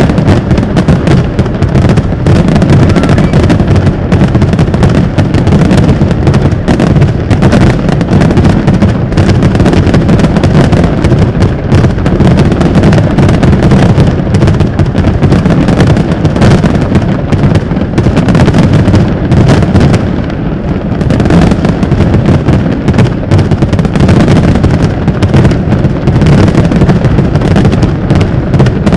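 Very loud, continuous fireworks barrage: shells bursting in rapid, overlapping succession with deep booms and crackle, barely easing off for a moment about two-thirds of the way through.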